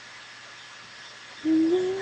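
Faint steady hiss, then about one and a half seconds in a woman's voice starts a held wordless sung note that steps up slightly in pitch.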